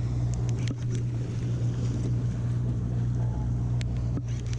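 Charter boat's engine running with a steady low hum, with wind on the microphone and a few faint clicks.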